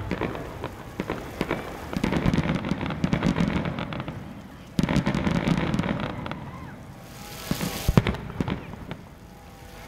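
Fireworks display going off: bursts of dense crackling over a heavy low rumble, with scattered sharp bangs and a cluster of loud bangs about eight seconds in.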